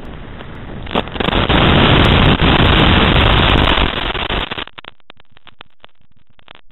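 A knock about a second in, then a loud, even hiss of radio static from the 5.8 GHz FPV video link's audio as the plane reaches the ground and the signal drops out. Near five seconds in the hiss cuts off into faint, sputtering crackles.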